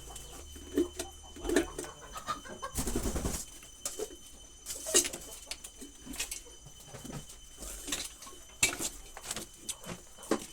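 Pigeon or dove cooing, with scattered sharp clicks and knocks from handling electric kettle parts while a wire is fitted.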